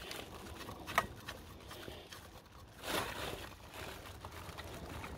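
Quiet handling noises from hands working among hoses and connectors in an engine bay: a sharp click about a second in and a short rustle around three seconds in.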